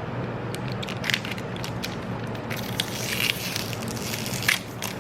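Plastic chocolate-bar wrapper crinkling and crackling as it is handled and torn open, the crackles coming thicker in the second half.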